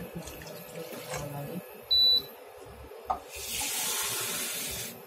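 Water poured into a wok of tamarind-and-shrimp broth, a steady splashing pour lasting about a second and a half near the end. A short high beep sounds about two seconds in.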